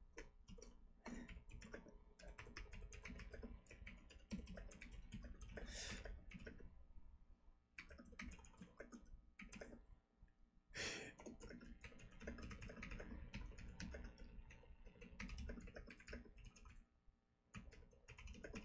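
Faint typing on a computer keyboard: quick runs of keystrokes broken by short pauses, with a few harder strokes.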